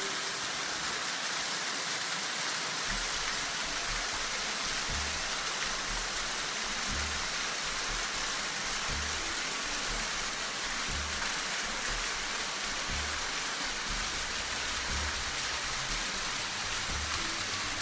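Steady hiss of falling, splashing water from a waterfall, with dull low thumps every second or two.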